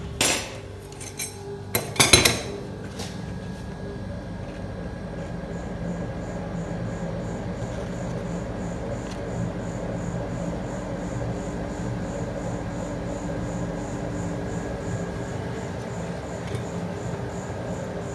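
Metal spatulas clanking sharply against a steel rolled-ice-cream cold plate a few times in the first couple of seconds, the loudest pair about two seconds in. A steady hum carries on under and after the clanks.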